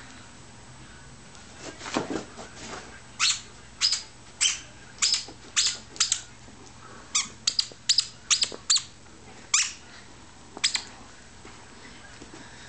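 Squeaker in a plush dog toy squeaking in short sharp bursts, about a dozen times in quick succession, as a German Shepherd bites down on it.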